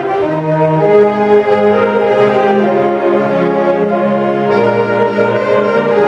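A large saxophone ensemble, soprano, alto, tenor and baritone saxophones, playing together in harmony with held chords over a moving bass line.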